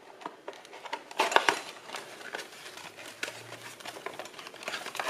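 A small cardboard box being opened and its paper wrapping handled: crackling, rustling and scattered clicks, loudest a little over a second in.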